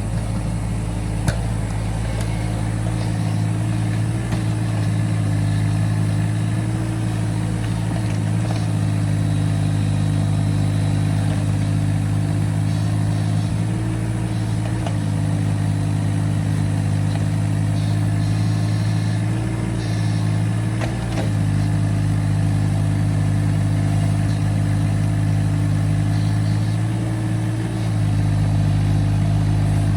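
Excavator's diesel engine running steadily at working speed, with slight rises in pitch and level every several seconds as it takes load while digging soil.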